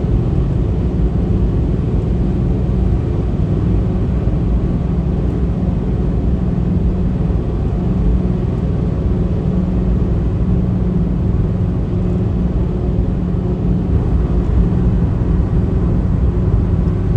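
Steady low rumble with a fainter hiss above it, unchanging throughout.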